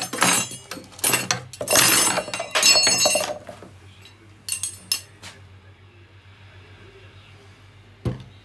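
Thin clear plastic bottle, cut down to a cup, crackling and crinkling loudly in bursts as it is squeezed and handled, then a few shorter crackles about a second later. Near the end, a single dull thud as it is set on the table.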